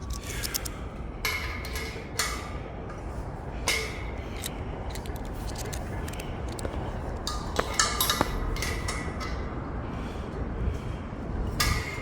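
Light metallic clinks, taps and scrapes of tools or parts being handled, coming irregularly every second or so over a steady low hum.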